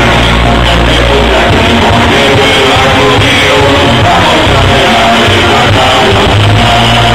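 Live band music with singing, loud and steady, recorded through a mobile phone's microphone in the audience.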